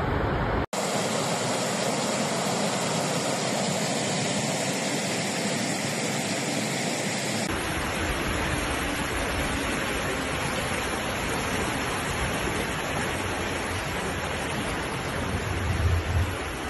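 Fast-flowing floodwater rushing through town streets: a steady noisy rush that changes abruptly twice, with a few louder low bumps near the end.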